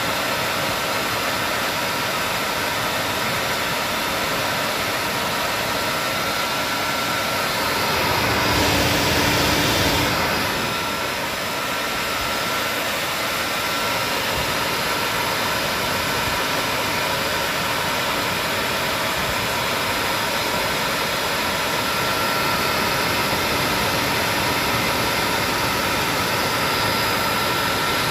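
Diesel engine of a Hitachi Zaxis 210F amphibious pontoon excavator running hard with a steady whine as the machine crawls up out of a peat ditch, surging louder for a couple of seconds about eight seconds in.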